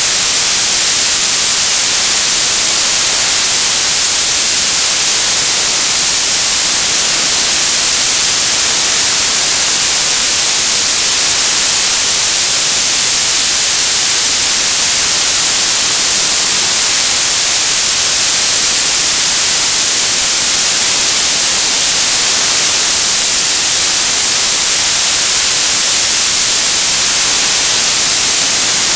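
Television static: loud, steady hiss of an untuned analog TV, even and unchanging, brightest in the treble.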